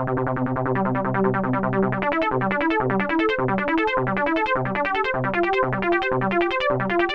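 Cherry Audio DCO-106, a software emulation of the Roland Juno-106 analog polysynth, playing the 'Basement TV' patch dry with no effects. It plays a fast repeating pattern of short, bright notes at about ten a second, and a lower bass line of separate notes joins about two seconds in.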